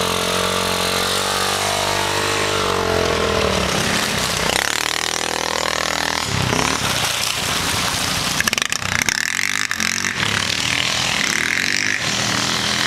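Small off-road engines of a dirt bike and quad bikes revving up and down, the pitch rising and falling as the throttle opens and closes and changing abruptly a few times. A short patch of sharp knocks comes about two-thirds of the way in.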